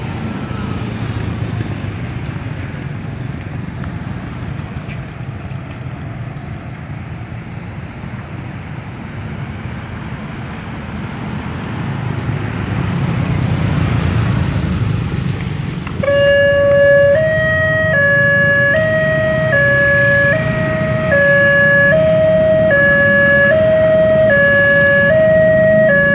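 Road traffic from motorcycles and cars runs steadily. About two-thirds of the way in, a railway level-crossing warning alarm starts: an electronic two-tone signal that alternates about once a second, warning that a train is coming and the barriers are closing.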